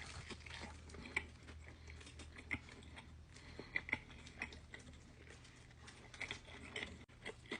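Someone chewing a sandwich with the mouth close to the microphone: soft, irregular wet mouth clicks and smacks over a faint low hum.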